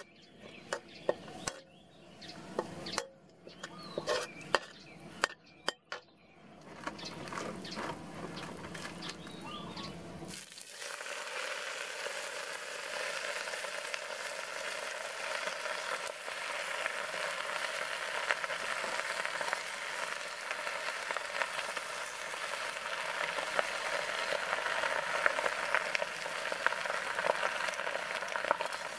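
A metal ladle scrapes and clanks against a wok as chopped garlic fries. About ten seconds in, a loud steady sizzle sets in as the leafy greens go into the hot wok, and it keeps sizzling with occasional ladle scrapes.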